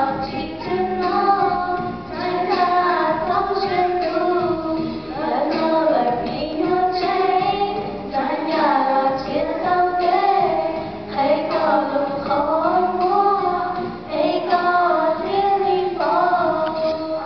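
Three young women singing a song together into handheld microphones, their voices moving in several lines at once.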